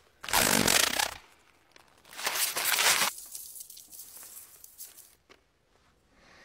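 Film sound effects of a magic howler letter ripping itself to shreds: two loud ripping bursts about a second apart, then a softer rustle as the scraps fall.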